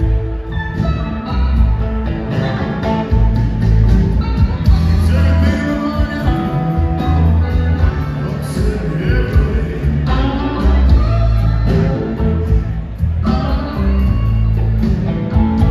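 Live rock band playing a blues number: two electric guitars, bass, keyboards and drums at a steady beat, with a man singing part of the time. Recorded from among the audience, with the band's sound filling a large hall.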